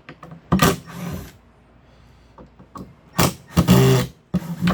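Cordless drill/driver running in short bursts, backing screws out of a wooden shipping crate, with small handling clicks in between. The longest burst lasts about a second.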